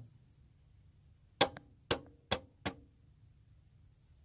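Four sharp metallic strikes on a Hummer H3's old water pump, about half a second apart, each ringing briefly, knocking the stuck pump loose from the engine.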